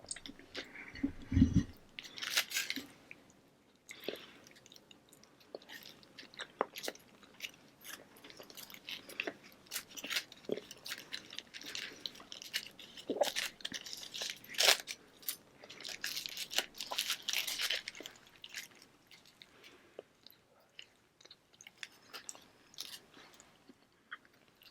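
Close-miked chewing and biting, with crunchy, wet mouth sounds that come in irregular bursts and thin out near the end. A low thump sounds about a second and a half in.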